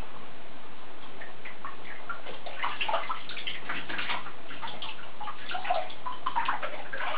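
Bath water dripping and splashing in a bathtub as a wet chihuahua puppy is held and scrubbed over shallow water. Scattered small splashes and drips, busier from about two and a half seconds in.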